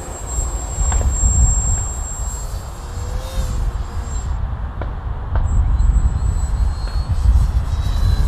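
Electric RC airplane's brushless motor and propeller whining high overhead, its pitch gliding briefly a few seconds in, under heavy gusting wind rumbling on the microphone.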